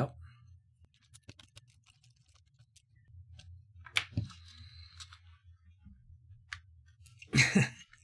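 Faint clicks and small handling noises from a stranded copper wire in the screw-terminal connector of a small plastic smart-switch module as it is worked in and tugged on by hand. A sharper click comes about four seconds in, and a short strained grunt follows near the end.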